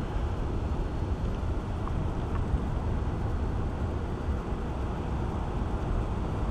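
Steady low outdoor rumble and hiss, wind and background noise on the microphone, with no distinct event.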